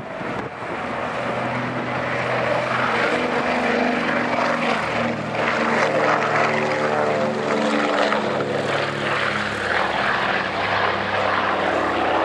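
Consolidated PBY Catalina's twin Pratt & Whitney R-1830 radial engines at take-off power as the flying boat lifts off and climbs past, growing louder over the first few seconds, then holding steady.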